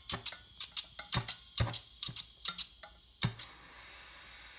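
Hand-held propane torch being lit: its trigger igniter clicks over and over, about three or four times a second, until the torch catches a little past three seconds in and settles into a steady hiss of burning gas.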